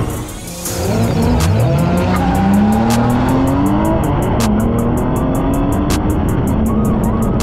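Drift car engine working hard, its pitch climbing steadily for a second or two shortly after the start, then held and rising again, over tyre noise from the track.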